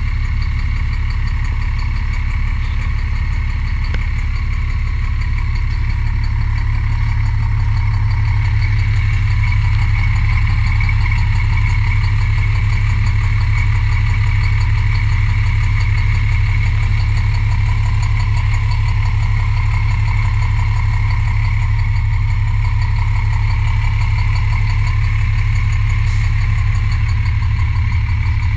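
Cummins diesel engine of an MCI D4000 motorcoach idling steadily with a heavy, rhythmic knock: a bad connecting-rod knock.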